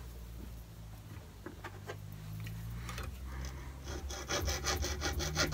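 Hacksaw cutting a cast pewter sprue held in a bench vise. A few light clicks and taps as the saw is set to the work, then from about four seconds in, quick, even rasping strokes of the blade through the soft metal.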